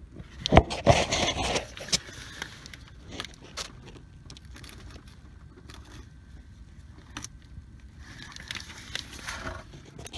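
Scraping, rustling and light clicks of a gloved hand and hand-held camera working in among the parts of a pickup's engine bay around a transmission cooler line quick-disconnect. The handling is busiest in the first two seconds, then there are a few scattered clicks, and more rustling near the end.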